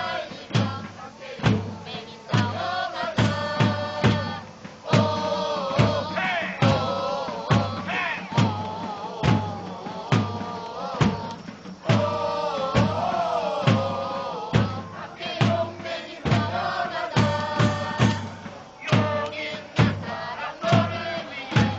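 Football supporters' section chanting a song in unison to a steady drum beat, about two strikes a second.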